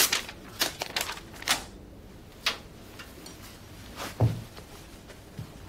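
Paper documents being torn up in several quick rips over the first two and a half seconds, then a low thud about four seconds in as a person drops from an office chair to the floor.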